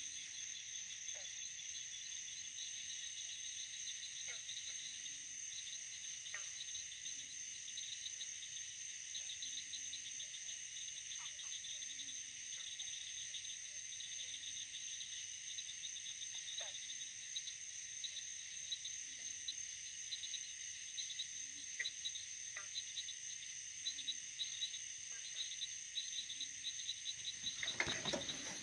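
Steady chorus of high-pitched insect trills, one of them pulsing quickly, with a few faint ticks scattered through it. A louder rustling noise rises about a second before the end.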